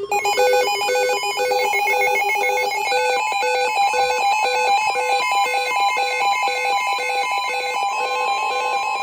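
Electronic emergency-alert attention tone: several beeping electronic tones repeat in an even, rapid pattern at about two beeps a second. It announces the weather warning.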